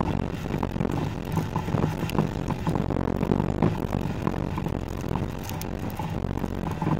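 Skoda Octavia (1U) TDI driving over a rough forest dirt track, heard close to the front wheel: a steady low rumble of tyre and running gear with frequent small knocks and clicks as the suspension works over the uneven ground.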